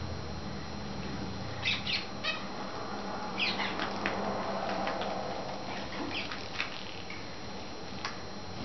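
Young cut-throat finches giving short, sharp chirping calls, singly and in quick pairs, about nine in all.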